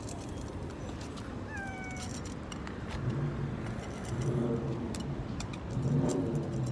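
Cats meowing for food as dry kibble is shaken out of a tin can onto brick paving. There is one high, falling meow about one and a half seconds in and lower, longer cries around three, four and a half and six seconds, with light clicks of kibble and the can on the bricks.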